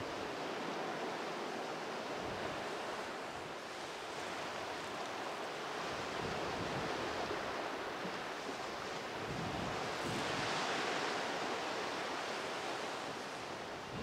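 Sea surf washing in a steady rush of noise, swelling louder twice, once a little before halfway and again about ten seconds in.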